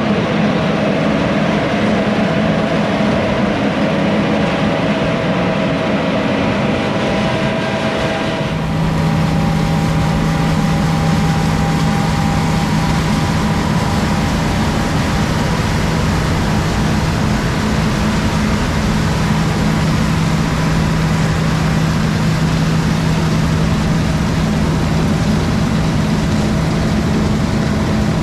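Large diesel farm machinery running steadily under load, with a steady engine hum over a broad mechanical rush. The engine note and texture shift about eight seconds in.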